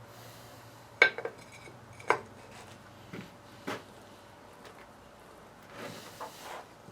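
Metal winch parts clinking and knocking against each other as they are handled: a few sharp clinks with a short ring, roughly a second apart, then a soft rubbing near the end.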